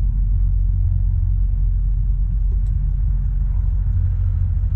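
Nitro RC truck engine running steadily with a low rumble, its fuel needle set tight (lean).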